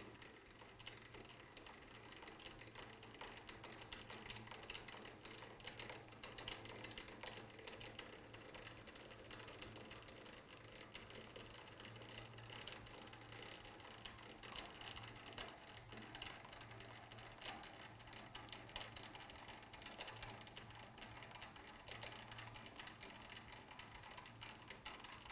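Lathe cross slide being cranked back and forth by hand: faint, continuous clicking and rattling from the cross-feed screw and handwheel, over a low hum.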